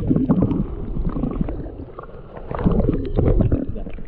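Muffled water sloshing and gurgling picked up by a camera at or below the river's surface, with splashing from a hooked fish being played on the line, loudest from about two and a half to three and a half seconds in.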